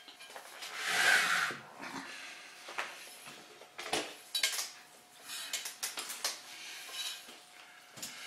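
A heavy rock scraping and knocking on a concrete floor as it is pushed into position: one long scrape about a second in, then irregular sharp knocks and clatters.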